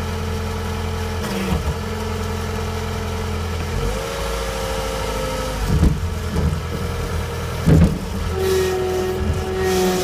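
John Deere 318 skid steer's diesel engine running steadily, heard from the cab, its pitch shifting as the machine works into the brush. Two loud knocks stand out about six and eight seconds in.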